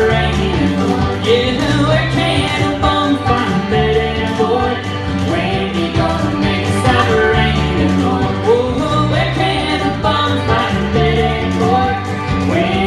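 A live country band plays with a woman singing lead over guitar and a steady, stepping bass line.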